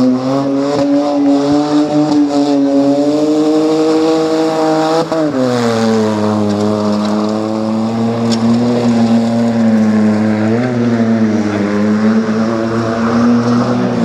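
Opel Corsa rally car's engine running hard at high revs on a muddy slalom course, the engine note held fairly steady. It drops and recovers briefly twice, about five seconds in and again near eleven seconds.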